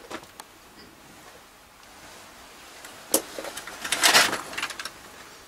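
Movement and handling noise in a small room: a few faint clicks at first, a sharp click about three seconds in, then a second or so of clothing rustle as an arm swings.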